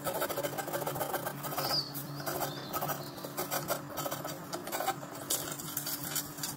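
Rapid, irregular scratching strokes of a drawing or painting tool on cold-pressed watercolour paper, with a steady low hum underneath.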